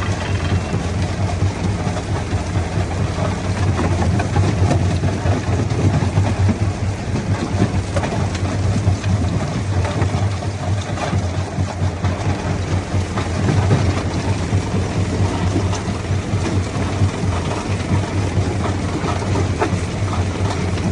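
Quarry jaw crusher running steadily with a low hum, with irregular knocks of rock being crushed.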